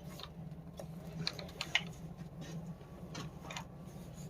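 Scattered light clicks and ticks of hands handling and loading an airsoft gun, about eight irregular ones over a low steady hum.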